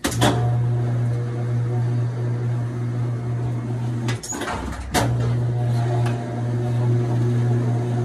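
Kenmore top-load washing machine's motor starting with a click and running with a steady low hum on the spin cycle. It cuts out for under a second about four seconds in, between two clicks, then runs on with the lid open: the lid safety switch has been bypassed.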